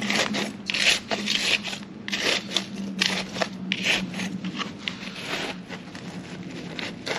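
Irregular scraping and rubbing as a succulent clump is worked loose from its pot, the root ball stuck in old soil that has set hard.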